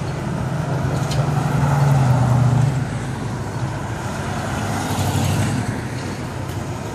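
Vintage cars driving past in a slow procession, their engines making a low steady hum with tyre and road noise. The hum swells loudest about two seconds in as one car passes close, with a smaller swell around five seconds in.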